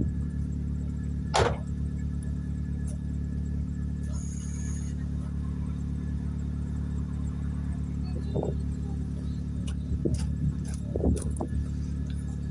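Ford Street Ka engine idling steadily, with a sharp click about a second and a half in and a few light knocks near the end.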